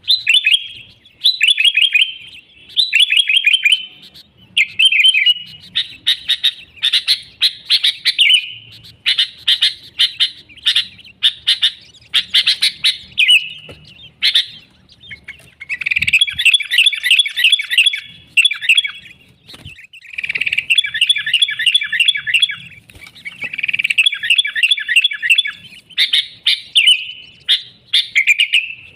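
Sooty-headed bulbul (kutilang) singing busily: phrase after phrase of fast chattering notes, each about a second long with short breaks between.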